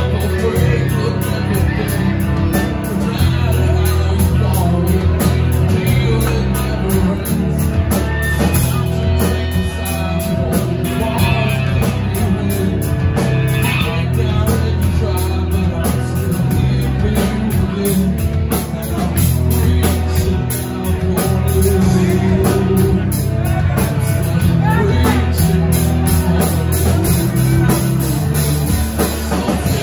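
Live rock band playing loudly: electric guitars and drum kit with a singer on vocals.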